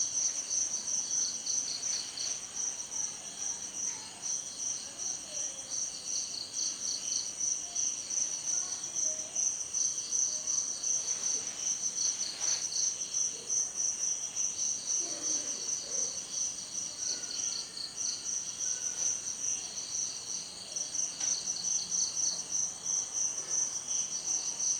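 A chorus of insects trilling steadily, with a fast, even pulse and a high pitch. A second, slightly lower trill drops out and comes back several times.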